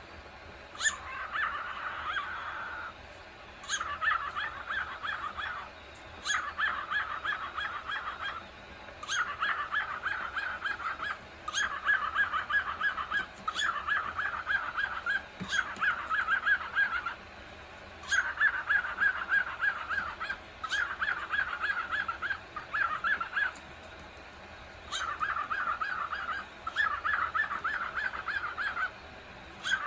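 Male cockatiel calling in repeated bursts of rapid, chattering notes, each burst one to two seconds long with short pauses between, many opening with a sharp click.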